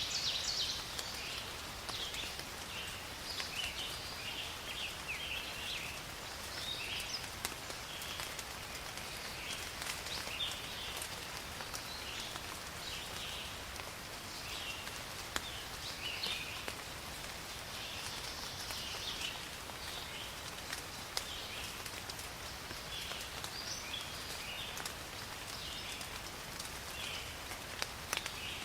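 Steady rain falling, with scattered drop ticks, and many short bird chirps calling over it.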